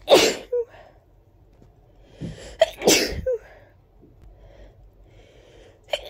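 A person sneezing hard twice: one loud sneeze right at the start, then a sharp intake of breath and a second loud sneeze about three seconds in. A third sneeze begins right at the end.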